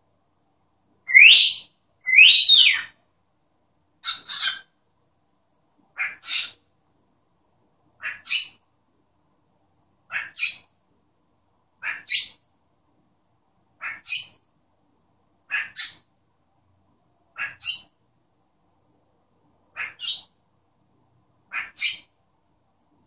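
Pet grey cockatiel calling: two loud rising whistles, then a short two-note call repeated about every two seconds.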